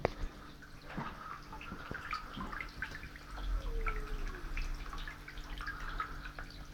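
Submerged ultrasonic mist maker running in water, with a continuous fine bubbling and spattering of droplets over a steady low mains hum. About four seconds in there is one short falling squeak.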